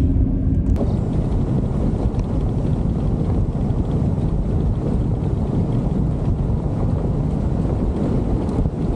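Wind buffeting a camera mounted outside a Ford Ranger as it drives a dirt track, with the road noise of the tyres beneath: a steady, dense low rumble that starts just under a second in.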